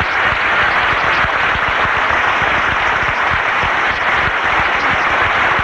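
An audience applauding, steady and loud.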